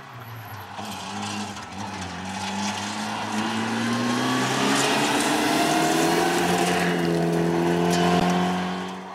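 Rally car, a Mitsubishi Lancer Evolution, accelerating hard on a gravel stage: the engine note climbs steadily in pitch and grows louder over several seconds, over the rush of tyres on loose gravel, then cuts off abruptly near the end.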